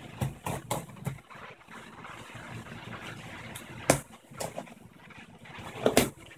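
Hands unpacking a shipped parcel at a table: several short sharp knocks and clicks of packaging being handled, the loudest just before four seconds in and a pair near the end, over a steady low hum that dims about four seconds in.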